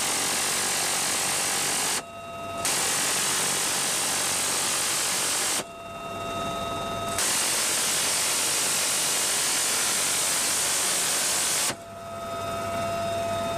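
Helicopter-mounted rapid-fire machine gun firing three long continuous bursts, the shots so fast they blur into one buzz. The first burst lasts about two seconds, the second about three, and the last about four and a half seconds, ending shortly before the end. Between the bursts the helicopter's steady turbine whine is heard.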